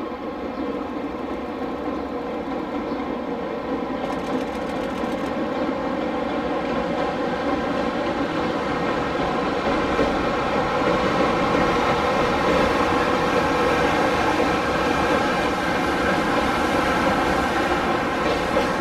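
JR Freight EH500 electric locomotive and its container wagons rumbling across a steel girder railway bridge, growing steadily louder as the train comes closer, with a steady drone of many pitches over the rumble.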